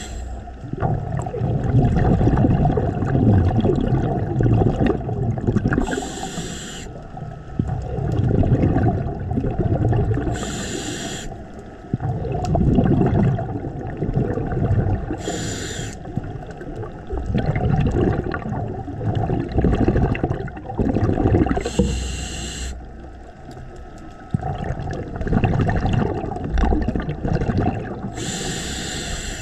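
Scuba diver breathing through a regulator underwater: a short hiss of inhalation about every five to six seconds, each followed by several seconds of rumbling exhaust bubbles.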